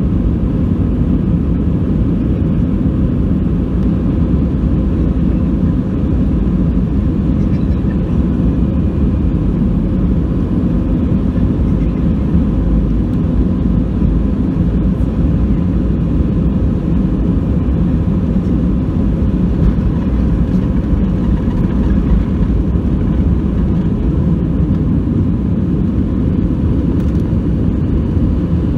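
Inside the cabin of an Airbus A319 on its takeoff roll: the two CFM56 turbofan engines running steadily at takeoff thrust, with the low rumble of the wheels on the runway.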